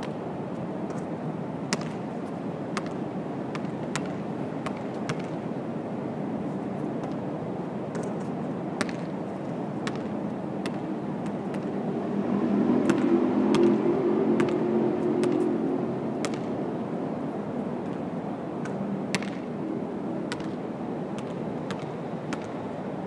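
Basketball thudding on the hard rooftop court and striking the rim and backboard, sharp knocks at irregular intervals over a steady low city rumble. A louder low rumble swells for a few seconds about halfway through.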